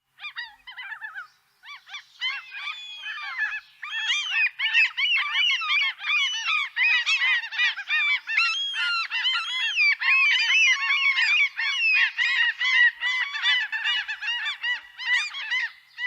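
A flock of birds calling: many short, high-pitched calls overlapping, sparse at first and thickening into a dense chorus about four seconds in.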